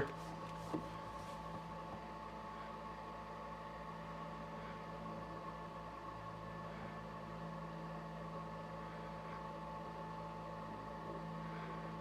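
MDF rose engine lathe turning a paper chuck through a pass with the rosette engaged, giving a steady, faint mechanical hum with fixed tones that swells a little now and then.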